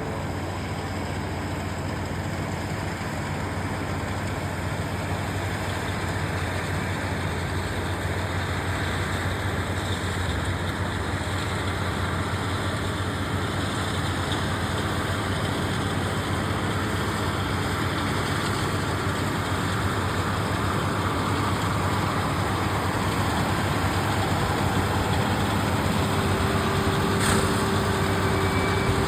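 New Holland tractor engine running steadily with a baler, growing slowly louder. Near the end a steady hum joins in and there is one sharp click.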